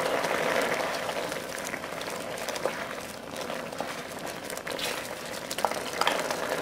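Chicken broth boiling in an electric wok, a steady bubbling hiss, as cornstarch slurry is poured in to thicken the sauce. A few light clicks come in the second half.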